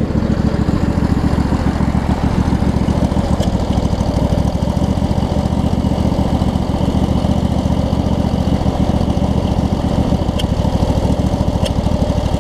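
A 25 hp Briggs & Stratton V-twin riding-mower engine running steadily at an even, low speed. It is joined by a few faint ticks.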